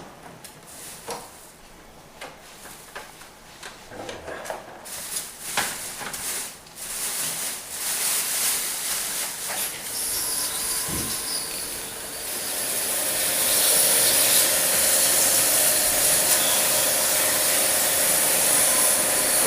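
A few clicks and knocks of parts being handled, then a spray hissing that grows and turns loud and steady about two thirds of the way in, with a faint steady hum beneath it: spray-washing during an air conditioner cleaning.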